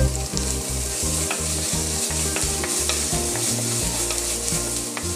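Ground ginger sizzling as it fries in oil in a clay pot, stirred and pushed around the pot with a wooden spoon.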